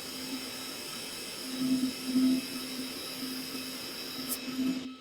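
Handheld laser welding machine running while welding 3 mm stainless steel: a steady hum with a thin high whine, swelling louder about one and a half to two and a half seconds in.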